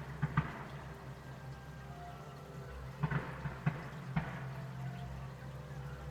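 Distant fireworks going off: a handful of short, sharp bangs at irregular intervals, two in the first half second and a cluster about three to four seconds in, over a steady low rumble.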